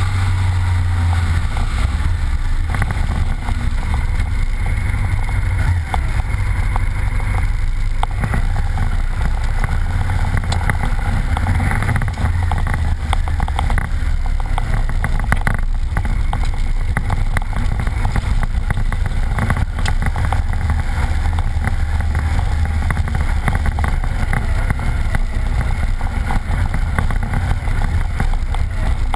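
Honda Varadero's V-twin engine running steadily as the motorcycle rides a rough gravel track, with wind on the microphone and many small ticks and knocks.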